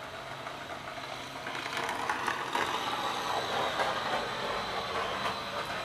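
Rustling and scraping with small clicks as hands work a rubber line off the carburetor of a 4-cycle string trimmer engine, getting busier about a second and a half in.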